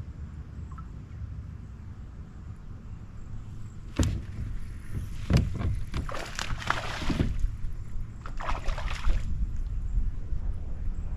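Water splashing and sloshing at a kayak: a sharp knock about four seconds in, then a couple of seconds of splashing, and another brief splash a little later, over a low steady rumble.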